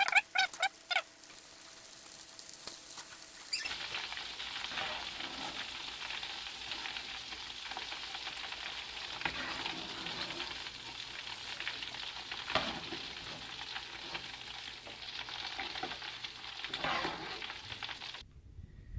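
Battered croaker and sand perch pieces deep-frying in hot oil in a wok: a steady sizzle that starts a few seconds in, with a few sharp clicks and scrapes of a metal slotted spoon. The sizzle cuts off suddenly near the end.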